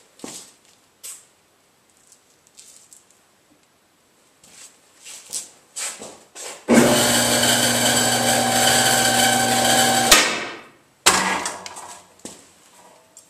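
Electric motor of a car lift's hydraulic pump running steadily for about three and a half seconds, starting and cutting off abruptly, as it raises the car body off the engine and transmission subframe. Scattered light knocks before it and a single sharp clunk about a second after it stops.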